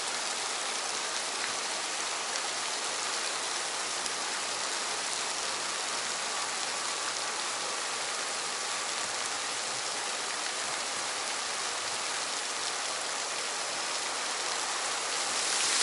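Running water splashing and rushing steadily, growing a little louder near the end.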